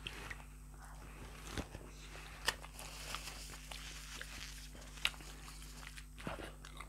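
Quiet chewing and eating sounds of people at a meal, with four short sharp clicks spread through, over a faint steady hum.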